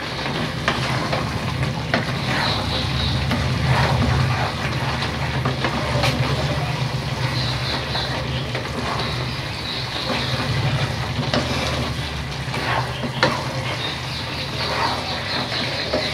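A spatula stirring and scraping chicken pieces coated in spice powder in a non-stick pan, with the food sizzling and the spatula knocking on the pan every few seconds. A steady low hum runs underneath.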